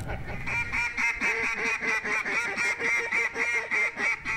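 A mallard duck call blown in a long, rapid string of quacking notes, starting about half a second in.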